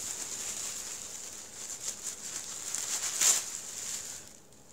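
Thin plastic wrapping around rolled-up clothes crinkling and rustling as it is pulled open, with a louder crackle about three seconds in; it stops shortly before the end.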